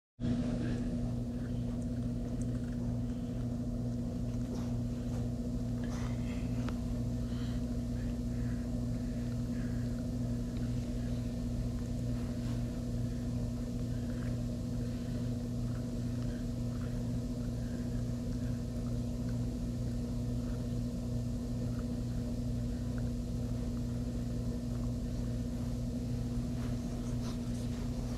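A steady low mechanical hum from a running motor, with a few faint ticks and crunches from a Rottweiler puppy gnawing a carrot.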